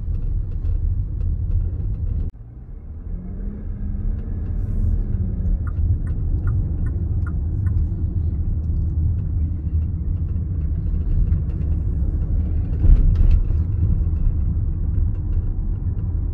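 Cabin noise of a 2017 Bentley Bentayga on the move: steady low road rumble, with a row of short squeaks from the interior and a single knock late on. These are the creaks in the cabin that the owner complains of.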